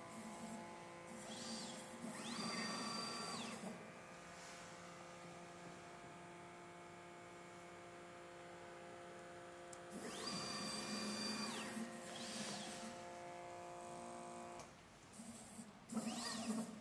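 Stepper motors of a CDPnP desktop pick-and-place machine moving its head during automatic calibration: a whine that rises in pitch, holds and falls again on each move, heard three times, over a steady hum of several tones that stops near the end.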